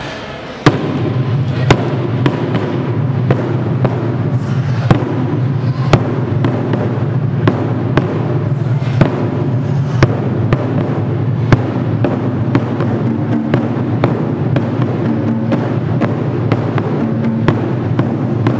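Japanese taiko drums playing: a large barrel-shaped nagado-daiko struck with sticks in hard, evenly spaced beats a little over one a second, starting just under a second in after a brief lull. Under the beats runs a continuous fast drumming from the rest of the ensemble.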